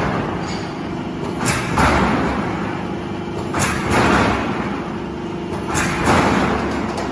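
A silo corrugated steel sheet roll forming machine running: a steady hum under a knock and a swell of rushing noise that repeat about every two seconds as the line cycles.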